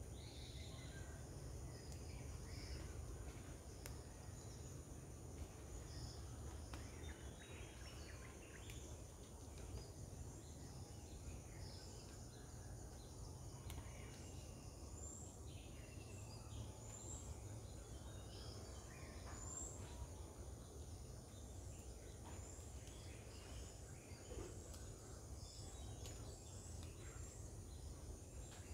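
Quiet garden ambience: a steady low rumble with faint, scattered bird calls, and a small high chirp repeating about once a second in the second half.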